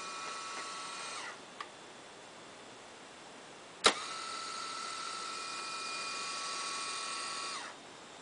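Akai GX-F44R cassette deck's tape transport running with a steady motor whine that drops in pitch and stops about a second in, followed by a faint click. About four seconds in, a sharp mechanical clack sets the whine going again, and near the end it falls in pitch and stops once more.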